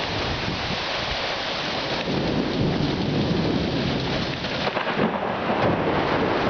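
Rain falling steadily while a window-shaking peal of thunder builds about two seconds in and rumbles on through the rest.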